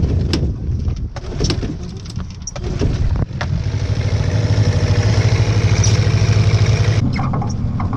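Boat's outboard motor catching about three seconds in, then running steadily with a quick pulsing hum. It eases off about seven seconds in. Knocks and clunks come before it.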